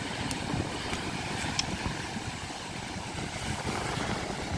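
Steady wind rumbling on the microphone, with surf washing onto the beach behind it.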